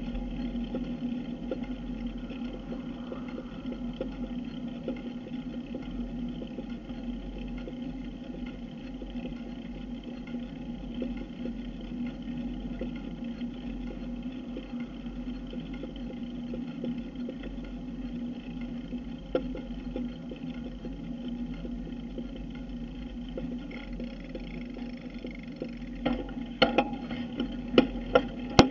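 Steady rush and hum of a bicycle moving along pavement, picked up by a camera mounted on the bike: wind and tyre noise. Near the end comes a quick run of sharp knocks as the camera mount jolts over bumps.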